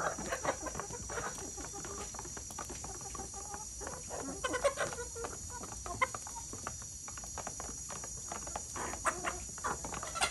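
A flock of chickens clucking softly in short, scattered calls while they peck at food, with many quick taps mixed in.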